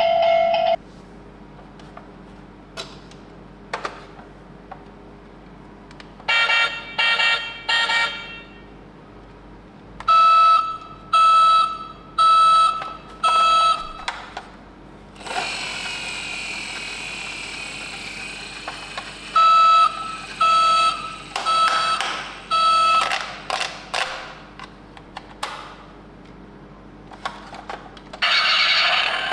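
Toy ambulance minicar's electronic siren sounding in short groups of repeated beeping tones, three or four beeps to a group. Between the groups there is a quieter whirring and clicking of the toy's motor and wheels.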